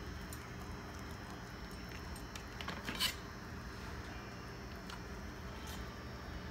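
Quiet handling sounds of a raw turkey wing being worked by fingers and a chef's knife on parchment paper, with scattered light clicks and one sharper click about three seconds in, over a steady low hum.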